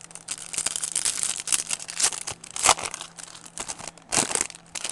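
Foil trading-card pack wrapper being torn open and crinkled by hand: a dense run of crackles, with louder rips near the middle and just after four seconds in.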